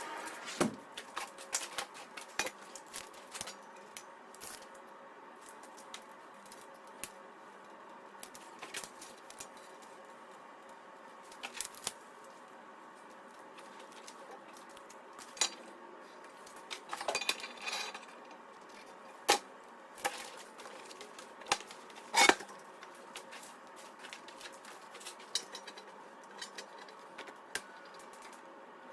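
Scattered metal clinks and knocks of metal parts and hand tools being handled and set down in a workshop, with a faint steady hum behind them; the loudest clanks come about two-thirds of the way through.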